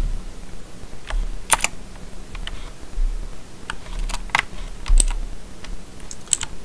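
Computer keyboard keys pressed one at a time at an uneven pace: a scattering of separate clicks.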